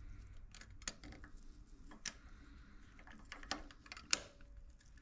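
Light metallic clicks and taps of small parts and a pick inside a Bosch VE diesel injection pump housing as springs are worked onto the governor's fulcrum lever. The clicks are scattered, the sharpest a little after four seconds in, followed by a brief faint ring.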